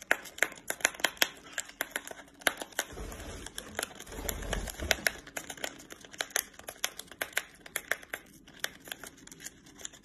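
A small parrot biting and tearing at a paper drink-mix packet with its beak: a rapid run of crinkles and sharp clicks. A low rumble comes in between about three and five seconds in.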